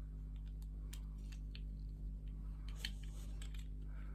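Faint, scattered small clicks and taps of plastic model-kit parts being handled and fitted together, over a steady low electrical hum.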